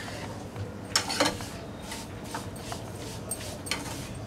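A metal spoon stirring and scraping crushed frozen lemon and sugar around a non-stick frying pan, giving a handful of separate scrapes and clinks.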